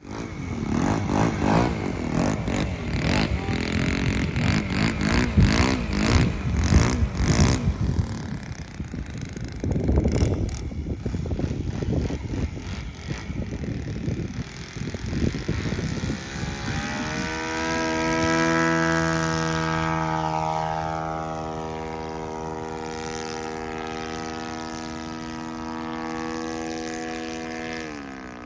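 OS FS-120 single-cylinder four-stroke glow engine of a quarter-scale model Cub, turning a 14x8 propeller. The first half is rough and choppy. From a little past the middle the engine settles into a smooth, steady high-throttle note that rises in pitch and holds, then drops just before the end.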